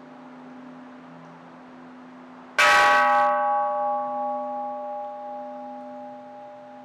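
Buddhist temple bell struck once about two and a half seconds in, then ringing out with a slow, pulsing decay over the low hum still sounding from the previous stroke.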